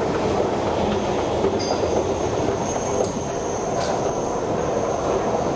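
Metro train running through the station: a steady, loud rumble, with a thin high squeal that starts about a second and a half in.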